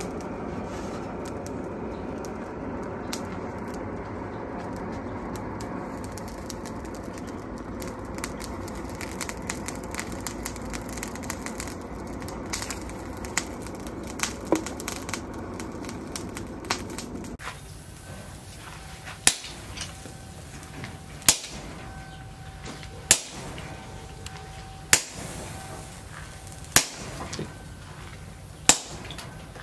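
Steady rush of a charcoal forge fire with scattered small crackles and clinks. After about 17 seconds it gives way to hammer blows on a hot-cut chisel held against a red-hot steel leaf spring on an anvil post, six loud strikes roughly two seconds apart, each ringing briefly.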